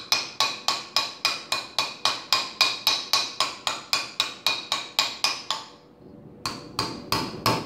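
Ball-peen hammer rapidly tapping a steel installer cap, about four to five ringing strikes a second, driving a Speedi-Sleeve down onto an NP203 transfer case front yoke until it is bottomed out. The strikes stop briefly near the end, then four more follow.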